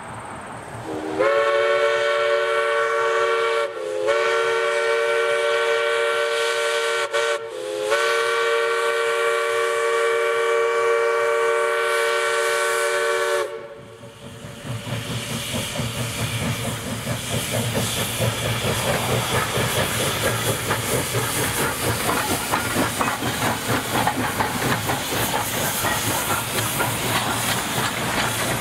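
East Broad Top No. 15, a narrow-gauge 2-8-2 Mikado steam locomotive, sounds its chime whistle in long blasts with a very short toot before the last and longest one, the long-long-short-long grade-crossing signal. After the whistle stops, the locomotive passes close by with its exhaust chuffing and steam hissing.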